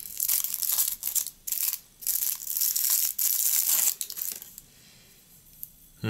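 Foil wrapper being unwrapped and crumpled by hand: a run of crinkling, rustling bursts that die away about two-thirds of the way through.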